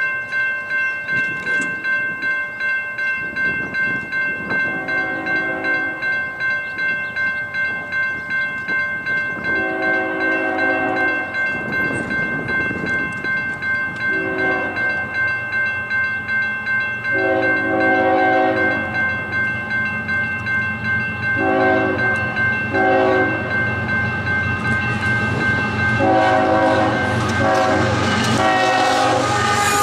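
Railroad crossing bell ringing steadily, pulsing about twice a second, while an approaching CSX diesel locomotive sounds its multi-note air horn in the grade-crossing signal: long, long, short, long, then further blasts. Near the end the locomotive's engine rumble and the rail and wheel noise grow louder as the train reaches the crossing.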